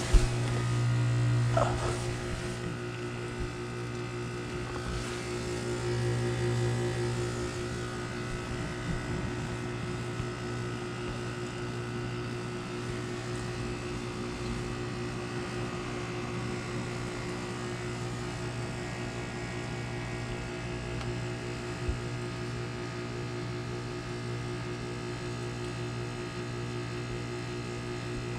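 Carrier Comfort 15 heat pump outdoor unit running in its defrost cycle: a steady electrical hum from the compressor, swelling slightly a couple of times, which seems near the end of the defrost.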